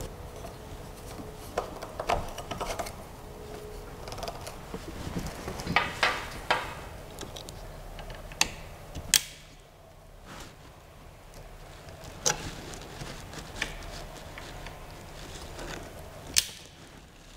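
Scattered clicks and knocks of metal and plastic parts being handled and fastened by hand while assembling a Creality CR-6 SE 3D printer's frame, with a few sharper clicks near the middle and near the end.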